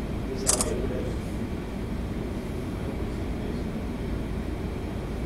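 Steady low rumble and hum aboard a 1000-foot lake freighter under way. There is one brief sharp click about half a second in.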